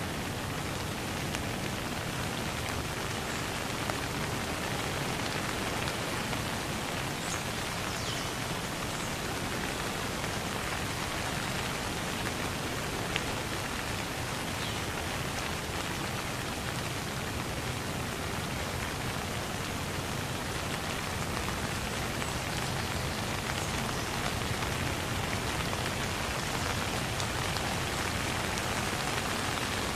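Soft, steady rain falling, an even hiss that never lets up.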